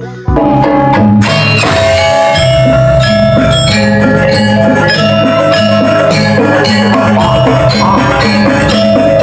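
Music for a Balinese janger dance: an ensemble of tuned metal percussion and drums playing loudly. The full ensemble comes in about a third of a second in, and a bright, high, cymbal-like layer joins about a second later.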